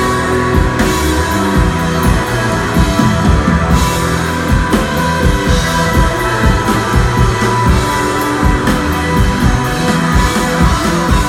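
Live psychedelic desert rock: a band playing loud and steady on electric guitar and drum kit, with cymbal crashes through the music.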